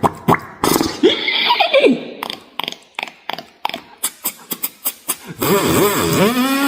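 Beatboxer's mouth sound effects: a quick run of sharp clicks and pops with short voiced squeaks, then, about five seconds in, a long pitched vocal tone that bends up and down.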